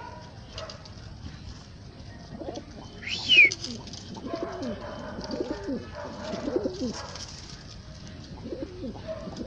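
Old Dutch Capuchine pigeons cooing over and over in low, wavering coos. About three seconds in comes one sharp, high, falling squeak, the loudest sound.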